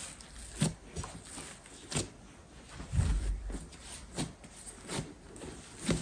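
Hands kneading and pressing a ball of risen yeast dough on a countertop: soft thuds and slaps about once a second, the heaviest a dull thump about three seconds in.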